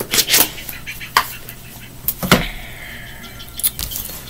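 Tarot cards being shuffled and handled: a few short papery riffles and taps, over a low steady hum.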